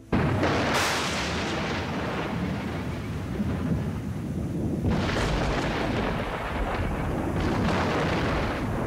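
Thunderstorm: thunder breaks in suddenly and loudly and keeps rolling, with sharper cracks about five seconds in and again near the end, over the steady hiss of rain.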